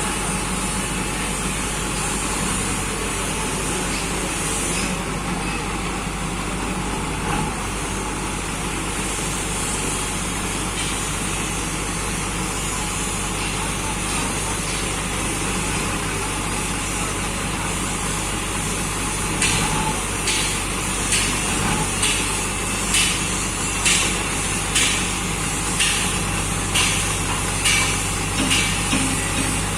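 Diesel engine of a skid-steer loader running steadily with a low drone. From about two-thirds of the way in, about a dozen short, sharp pulses come roughly once a second.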